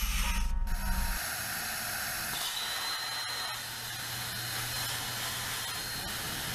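CNC laser cutter cutting metal plate: a steady hiss, with a faint high whine joining about two and a half seconds in. A low rumble cuts off about a second in.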